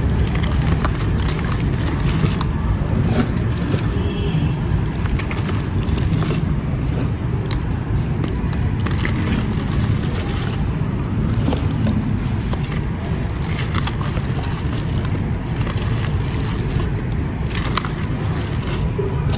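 Mint-green marble-powder crumbles being crushed in water: continuous gritty crunching and scraping over a steady low rumble.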